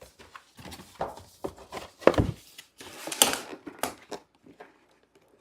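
Plastic magnetic tiles and toy animal figures being handled, with irregular clacks and knocks, a heavier thunk about two seconds in, and a brief rustle of packaging.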